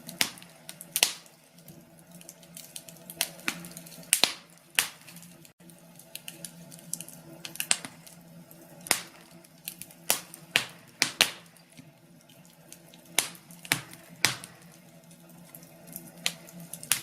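Wood fire in a fireplace crackling, with irregular sharp pops, some single and some in quick clusters, over a faint steady hum.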